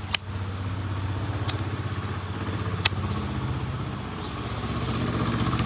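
An engine idling steadily with a low, pulsing hum. Three sharp clicks sound over it, the first right at the start, the others about a second and a half and three seconds in.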